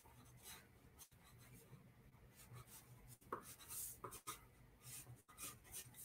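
Pencil strokes scratching across drawing paper: a string of quick, faint sketching strokes, the strongest a little past the middle.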